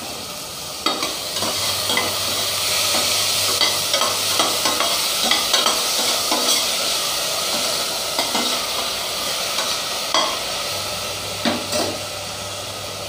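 Shallots, tomatoes and green chillies sizzling in hot oil in a stainless steel pot while being stirred, the utensil scraping and knocking against the pot many times. The stirring stops about a second before the end and the sizzling carries on more quietly.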